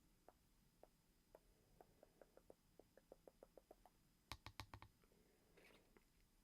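Quiet ASMR clicking: a run of soft clicks that quickens to about four a second, then five louder, sharper clicks in quick succession about four seconds in, followed by a brief soft rustle.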